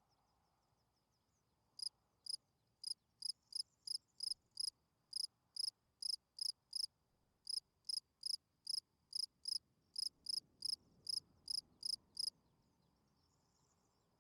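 Field cricket chirping: a regular run of short, high-pitched chirps, about two and a half a second, starting about two seconds in and stopping near the end, over a faint steady high trill. This is a male's calling song, sung to attract females.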